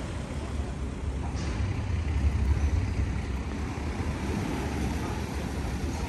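Low rumble of a large motor yacht's engines and propellers churning the water astern during docking, swelling about two seconds in.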